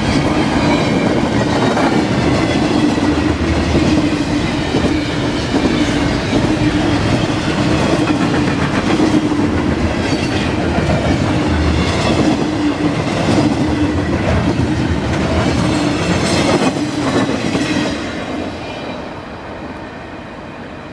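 Container cars of a long CSX double-stack freight train rolling past close by: a steady rumble with wheel clatter over the rails. The sound drops off about eighteen seconds in.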